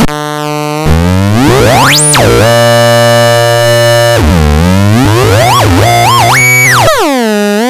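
DIY noise-box optical theremin, a light- and knob-controlled oscillator synth, sounding electronic tones whose pitch swoops down and back up. About two seconds in it glides fast up to a very high squeal, then drops and holds steady for a while before sweeping low again, warbling and jumping in pitch near the end.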